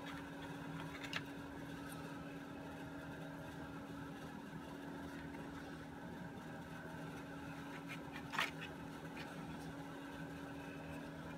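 Quiet, steady room hum, with a faint light click about a second in and another near eight seconds in.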